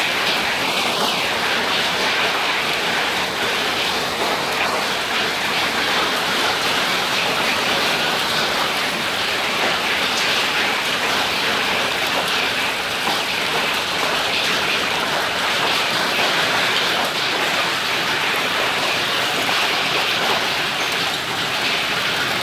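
Heavy rain mixed with small hailstones pelting a concrete pavement and tiled doorstep: a steady, dense hiss.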